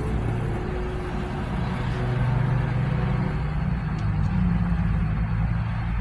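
Road traffic passing on a multi-lane street: cars and trucks going by, with engine hum and tyre noise, a little louder around the middle.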